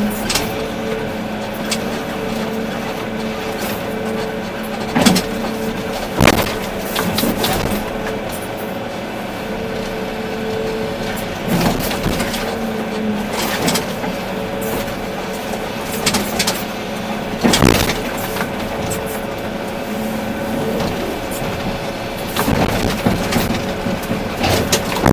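Volvo EC380D excavator's diesel engine and hydraulics running steadily with a constant hum, broken by about half a dozen sharp clanks and knocks from the machine at work.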